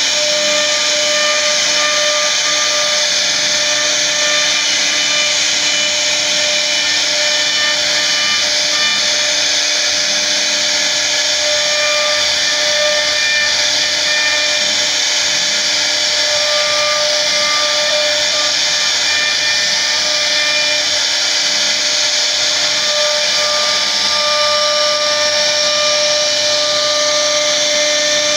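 CNC router spindle running steadily while its bit carves a relief into a wooden door panel: a constant whine of several steady tones over the rasp of the bit cutting wood.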